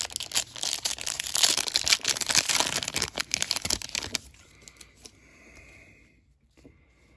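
A foil wrapper of a retail football trading-card pack being torn open and crinkled: a dense crackling for about four seconds that then stops.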